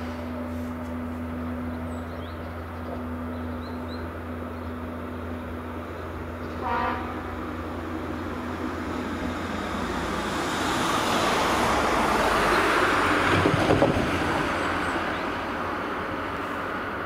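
A train horn gives one short toot about seven seconds in. Then a box truck drives past over the level crossing, its noise swelling to a peak with a few thumps about two-thirds of the way through, then fading as it moves off.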